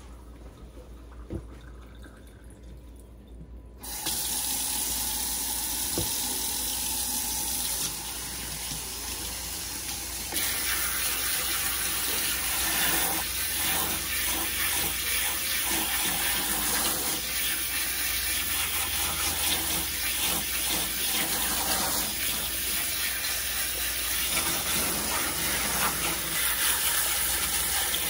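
Pull-down kitchen faucet sprayer turned on about four seconds in, its water spray hissing steadily into a stainless steel sink and over a wet cat being rinsed. The spray gets louder about ten seconds in.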